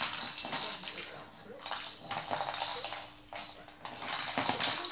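A hollow plastic ball toy rattling and jingling in three bursts as an African grey parrot bites it and shoves it across a wooden floor.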